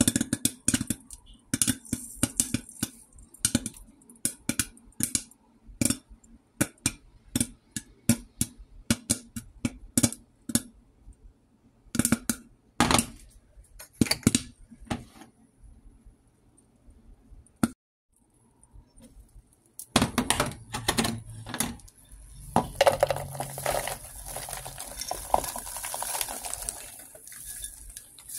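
Popcorn kernels popping inside a covered stainless steel pot: sharp, irregular pops that thin out after about fifteen seconds. After a short pause comes a dense rattling, rustling clatter of popped corn against the metal pot as it is tipped out.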